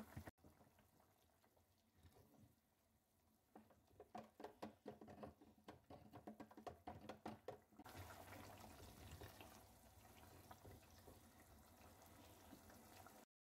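Egg curry gravy simmering in a pot and being stirred with a spatula: faint popping and bubbling, thicker in the middle of the stretch, cutting off suddenly near the end.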